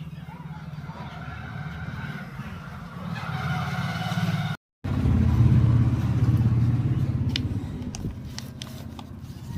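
A motor engine running steadily with a low hum. It cuts out briefly about halfway through and comes back louder, with a few sharp clicks near the end.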